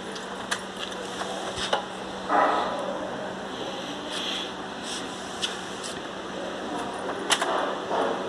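Scattered clicks and rustles of hands working around a truck's dashboard and a laptop, with a louder rustle a little over two seconds in, over a steady low hum.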